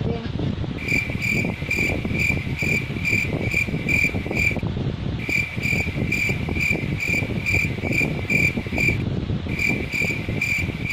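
Cricket chirping, a high chirp about twice a second with two short pauses, over a steady rumbling noise. It is likely laid in to cover the whispering.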